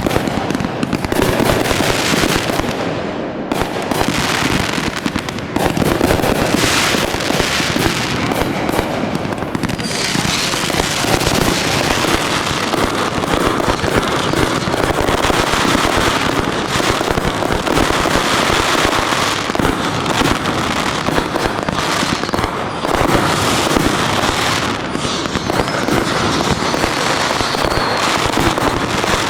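Fireworks display at finale intensity: a continuous barrage of aerial shell bursts, booms and dense crackle overlapping without pause.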